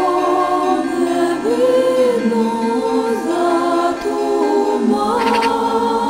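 A cappella choir singing slow, held chords that shift about every second, with no instruments or beat.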